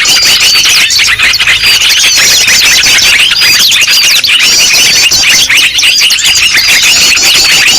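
Dense, loud chorus of many small birds chirping and twittering over one another without a break: a noisy bird-lure recording of the kind played to draw wild birds in.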